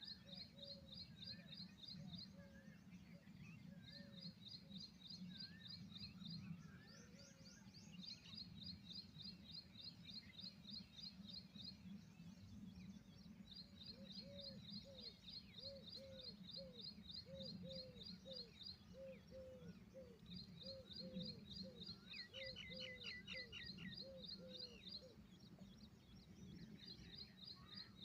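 Faint bird calls over a steady low background rumble. A rapid high trill repeats in runs of a few seconds, and from about halfway in a series of short, lower down-slurred notes comes about twice a second.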